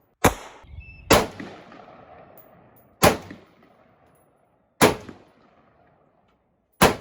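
Five gunshots, spaced irregularly about one to two seconds apart, each trailing off in echo. Shortly after the first there is a brief high ringing tone.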